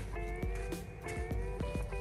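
Background music: held notes over a light, regular beat.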